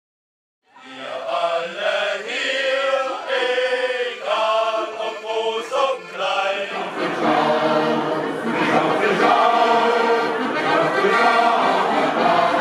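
Silence for under a second, then a men's folk choir singing to accordion accompaniment, fuller from about seven seconds in.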